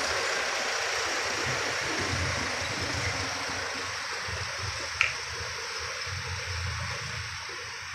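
Light cargo trucks driving past close on a sharp bend: low engine rumble under a steady hiss of tyre and road noise, which eases off in the second half. A short click about five seconds in.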